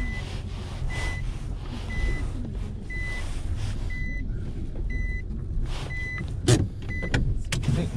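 A car's in-cabin warning beeper sounding a single high beep about once a second, eight times, over the low rumble of the car. Paper and a bag rustle, with two sharper knocks near the end.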